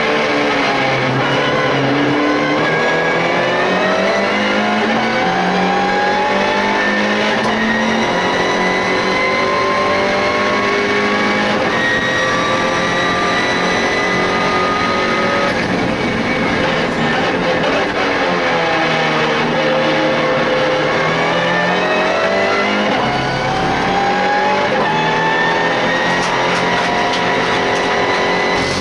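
Inside the cabin of a MINI Challenge race car, its engine running hard at racing speed: the engine note climbs for a long stretch, drops a little past halfway, then climbs again near the end.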